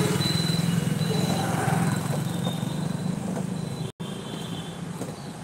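Steady low hum of a vehicle engine running, with an even hiss over it; the sound cuts out for an instant about four seconds in.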